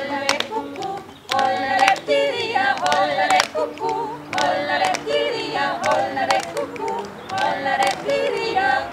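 A group of women singing a folk song together, with sharp hand claps keeping time between and under the sung phrases.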